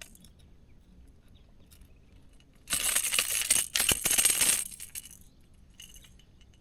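Brief burst of metallic rattling and jingling, about two seconds long, starting a little under three seconds in.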